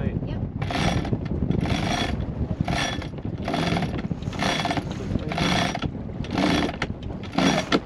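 Sailboat sheet winch ratcheting in regular strokes, about one a second, as the jib sheet is hauled in and the headsail unfurls.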